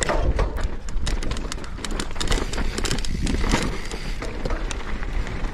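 Mountain bike riding over loose dirt and gravel: tyres crunching and the bike clattering in a dense run of sharp clicks and rattles, with wind buffeting the microphone in a low rumble.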